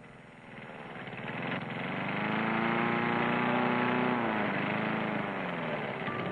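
Petrol lawnmower engine running hard with a rapid pulsing beat. Its pitch climbs, holds, drops about four seconds in, then dips and starts climbing again.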